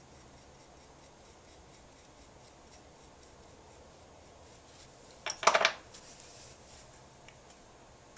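Faint scratching of a thin pointed pottery tool working a leather-hard clay cup. About five seconds in, a brief clatter of several quick hard knocks as a tool or bottle is handled on the wheel.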